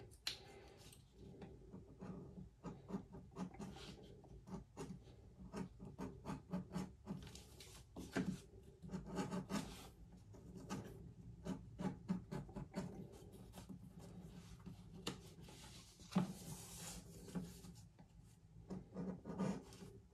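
Hand edge beveler shaving the edges of thick English bridle leather pieces: a run of faint, short, irregular scraping strokes, with a few sharper clicks.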